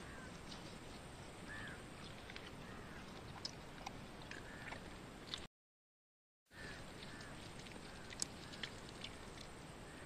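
A man chewing and crunching the bones of a small roasted quail, with sharp cracks every so often. Short bird calls repeat in the background. The sound cuts out to dead silence for about a second halfway through.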